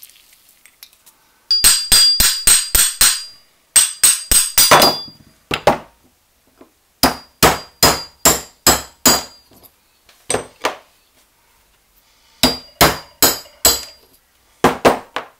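Steel hammer tapping the threaded steel shaft of a hand drill's handle, the shaft set upright in a wooden block. The blows come in quick runs of five or six, about four a second, with short gaps between runs, each blow ringing metallically.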